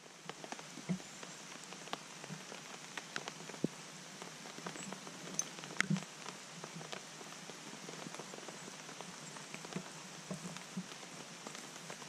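Steady rain, with single drops ticking sharply here and there, a few louder ones near the middle.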